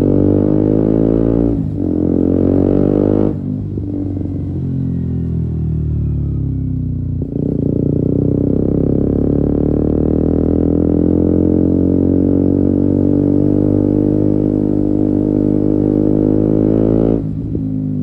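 2017 KTM Duke 125's single-cylinder four-stroke engine through an Akrapovic exhaust with a decat link pipe, ridden on the throttle. It shifts briefly under power, then the throttle closes about three seconds in and the revs fall away for a few seconds before it pulls steadily again, backing off once more near the end.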